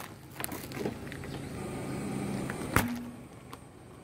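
Car tyre rolling slowly over asphalt and crushed food packets, with light crackling and one sharp crack a little under three seconds in.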